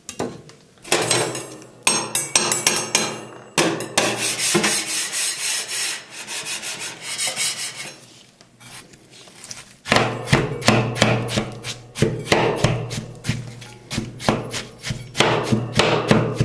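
Metal spatulas scraping and rubbing on a steel ice-cream freezing plate, then chopping it in quick strokes, several a second, from about two-thirds of the way in, as watermelon is worked into the freezing cream for rolled ice cream.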